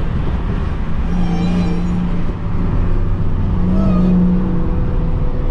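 Dodge Charger SRT Hellcat's supercharged V8 running under way at a fairly steady engine speed, with a constant low rumble. It eases briefly about two seconds in, then picks up again.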